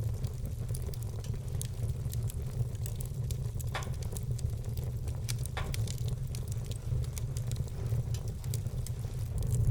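Wood fire burning: a low steady rumble under constant fine crackling, with a few louder pops around four seconds in and again near six seconds.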